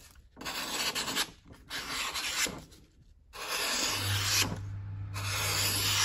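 A freshly sharpened Victorinox pocket knife blade slicing thin strips off a sheet of printer paper: four slicing strokes with short pauses between them, the paper rustling in the hand. This is a test of the newly reground edge, which peels the paper cleanly. A low steady hum comes in about four seconds in.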